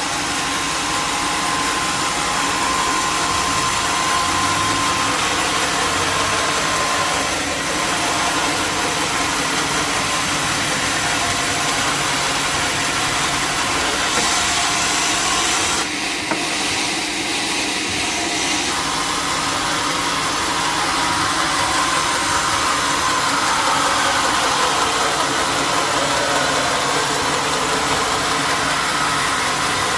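Sawmill machinery running steadily: a loud motor-like drone with a hiss and a few slow pitch glides, changing abruptly about halfway through.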